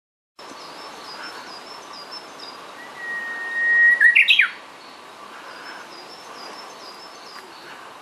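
Japanese bush warbler (uguisu) singing its 'hō-hokekyo' song once: a long steady whistled note about three seconds in, breaking into a quick rising-and-falling flourish. Faint high chirps repeat in the background.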